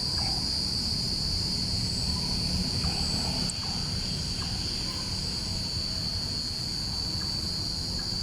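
Steady chorus of crickets, one unbroken high-pitched trill, over a low, even rumble.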